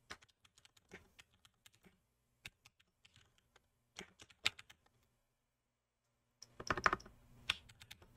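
Typing on a computer keyboard: irregular key clicks, with a quick flurry of keystrokes about six and a half seconds in.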